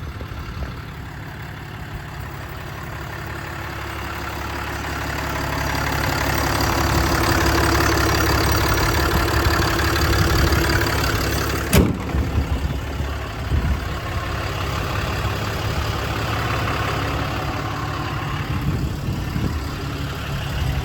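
6.7 Cummins diesel engine idling steadily, swelling louder for several seconds in the middle. A single sharp click comes about twelve seconds in, followed by a few knocks.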